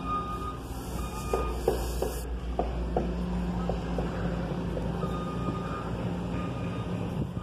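Vehicle backup alarm beeping at a steady pace of about one beep a second, over a low steady engine hum. Several light knocks come in the first few seconds.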